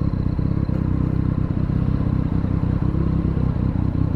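Triumph Street Triple 765 R's three-cylinder engine running at steady revs through an aftermarket Delkevic slip-on exhaust.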